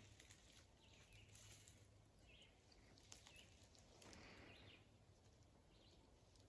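Near silence in the woods, with a few faint, scattered chirps from small birds calling in the distance.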